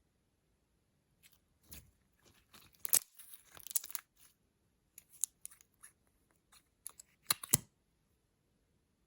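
Irregular crackling clicks and scratchy handling noises from makeup and slime being worked by hand, in scattered bursts with two loudest snaps, just before three seconds in and about seven and a half seconds in.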